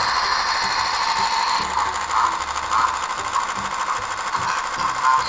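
A steady electric buzzing that changes in tone about a second and a half in.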